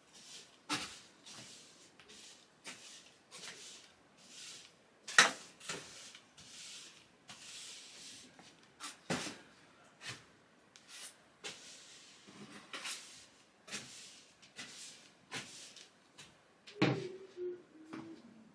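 Broom sweeping a floor: repeated brushy swishes with sharp knocks, the loudest knock about five seconds in. A brief low hum near the end.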